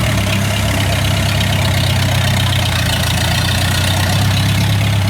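Diesel engine of a tracked rice-field machine running steadily at an even, low pitch.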